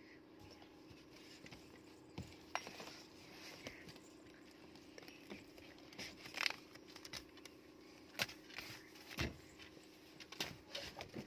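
Scattered light clicks, knocks and rustles of a child moving around inside a car and wiping it clean with a duster, over a faint steady hum.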